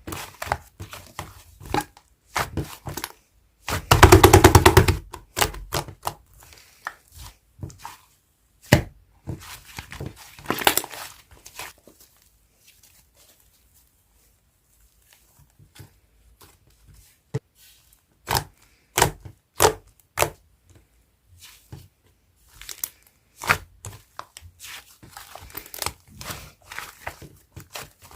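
Fluffy slime being squished and poked by hand: a string of sticky clicks and pops, with a dense crackling burst about four seconds in and a quiet pause in the middle.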